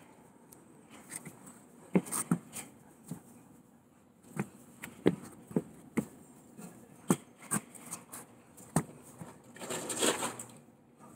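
Rubber-soled high-top sneakers shifting and tapping on wooden deck boards: a string of light, irregular knocks and scuffs, followed by a short rush of noise near the end.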